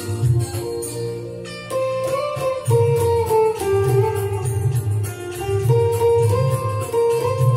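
Electric guitar playing a slow single-note melody of held, slightly bent notes over a backing track with a pulsing low bass part.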